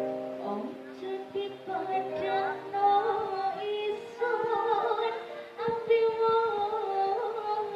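Live dangdut band music: held chords under a wavering, ornamented melody line, with percussion hits joining in about four seconds in.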